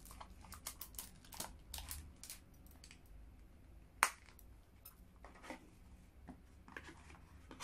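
Faint handling sounds of a small leather card holder and its cardboard gift box: soft rustles and light taps, with one sharper click about four seconds in.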